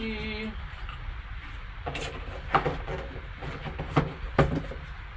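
Foam insert and cardboard box being handled: rubbing and shuffling, with a few sharp knocks about two and a half, four and four and a half seconds in.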